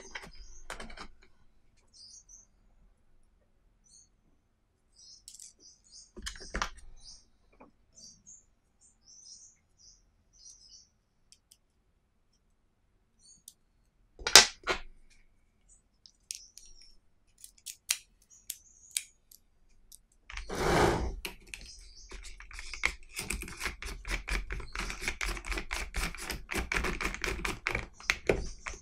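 Small plastic and metal clicks as screwdriver bits and bit holders are handled in a plastic bit case, with one sharp clack about halfway through. From about two-thirds in, a fast, steady run of clicks as a drill's keyless chuck is turned by hand to grip a bit holder.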